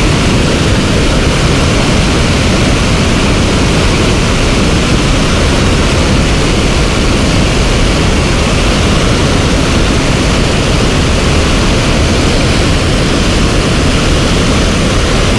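Water pouring over a concrete dam spillway into the pool below: a loud, steady rush of falling water.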